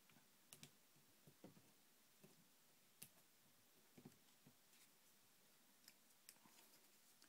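Near silence with faint, scattered clicks and taps of card stock being handled and pressed down by hand.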